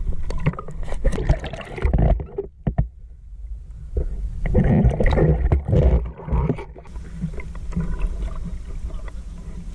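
Water sloshing and gurgling around a camera held at and just under the surface by a swimming spearfisher, an uneven, muffled low rumble with scattered knocks.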